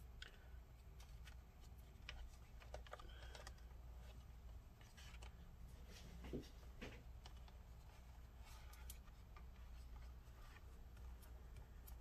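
Near silence with faint scattered clicks and rubbing as fingers press rubber foot strips into the slots on a laptop's bottom case, over a low steady hum.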